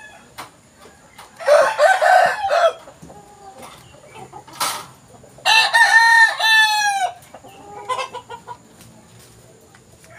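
Boston Roundhead gamecocks crowing twice: one crow about a second and a half in and a longer one around six seconds in. A single sharp click falls between the two crows.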